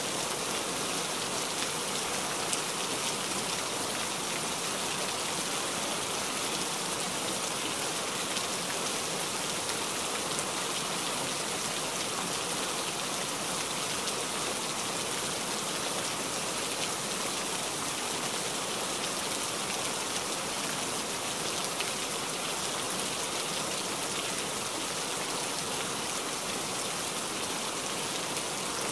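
Steady rain falling, an even hiss of many drops that holds at one level throughout.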